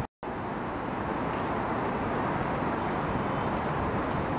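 Steady road and vehicle noise: an even, unbroken sound with no separate events, starting just after a sudden cut.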